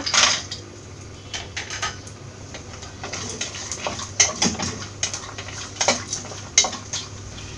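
Cashew nuts dropped into hot ghee in an aluminium pressure cooker, then a wooden spatula scraping and knocking against the pan as they are stirred, with a light sizzle.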